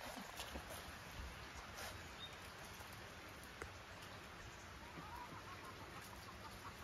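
Faint light clicks and pattering of puppies' paws and claws on cobblestones as they scramble about. Faint repeated bird calls come in near the end.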